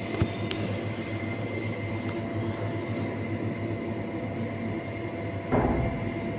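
Steady hum of running air-conditioning equipment: a low drone with thin steady tones over it. A sharp click comes just after the start and a brief bump about five and a half seconds in.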